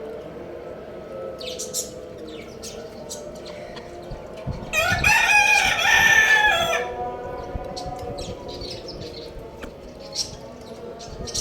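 Rooster crowing once near the middle, a single crow lasting about two seconds, with scattered short high chirps of small birds before and after.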